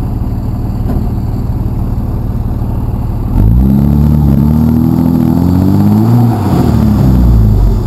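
Dodge Ram dually pickup's engine idling, then revved hard about a third of the way in. The pitch rises and falls for about four seconds before dropping back near the end.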